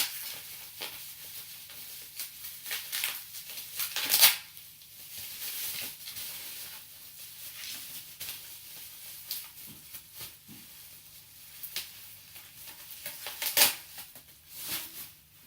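Plastic vacuum-cleaner extension tubes and their paper and tape packaging being handled: rustling with scattered clicks and light plastic knocks, the sharpest about four seconds in and again near the end.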